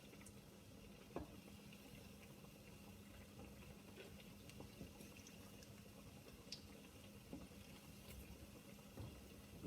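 Tuna and potato kebabs shallow-frying in vegetable oil: faint, scattered crackles and pops of the hot oil, over a low steady hum.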